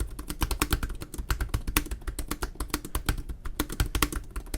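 Fast touch-typing on an HP Spectre x360 (early 2017) laptop keyboard: a rapid, uneven run of key clicks.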